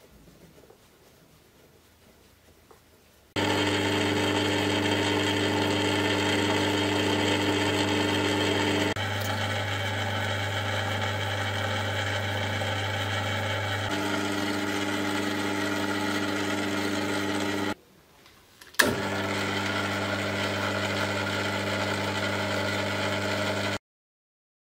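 Small bench lathe (Cowells 90) running under its electric motor: a steady mains hum with a whirring mechanical drone. It starts abruptly a few seconds in, drops out for about a second with a sharp click about three quarters through, and stops suddenly near the end.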